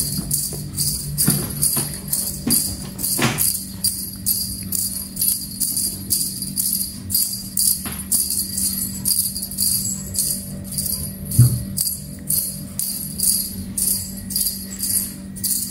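Background music with a steady jingling beat, about two strokes a second.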